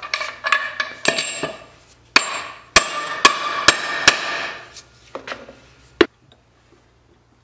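Hammer blows driving an iron end fitting onto the end of a wooden wagon neck yoke. About a dozen sharp metal-on-metal strikes with ringing come roughly half a second apart, then two slower ones; the last is about six seconds in.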